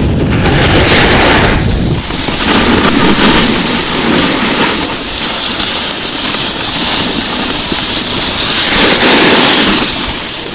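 Wind buffeting the moving camera's microphone with a low rumble, over the steady scraping hiss of a snowboard sliding across packed snow, the rush swelling and easing as the rider moves.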